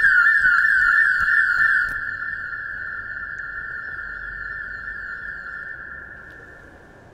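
Electronic security alarm sounding, set off by motion detectors: a loud, steady high tone with a falling warble repeating about three times a second. It drops sharply about two seconds in, then fades away.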